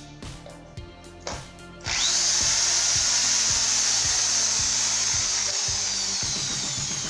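Corded electric drill plugged into a newly installed wall outlet and switched on about two seconds in, after a few clicks of the plug going into the socket. It runs at speed with its pitch slowly falling, and the running motor shows the new outlet is live. Background music with a steady beat plays underneath.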